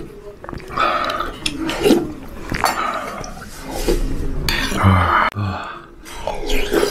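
A man slurping hot haejangguk broth off a metal spoon in several short, noisy sips about a second apart, with the spoon clinking lightly against the earthenware bowl.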